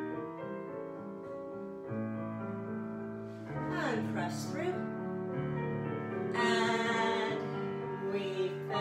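Piano music playing, with sustained bass notes and chords and a melody that wavers and slides in pitch over them.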